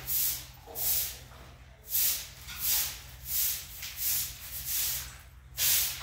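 Rhythmic swishing strokes, about one and a half a second, over a faint steady low hum.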